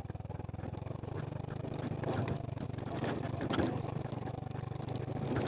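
Motorcycle engine running steadily at low speed, with scattered knocks and rattles as the bike rides over a rough gravel and dirt track.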